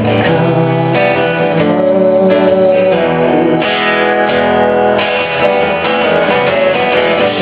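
Guitar strummed in an instrumental passage of a live song, chords ringing and changing every second or so.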